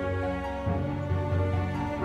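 Background music: slow, sustained instrumental notes over a low bass line, which shifts to a new note about two-thirds of a second in.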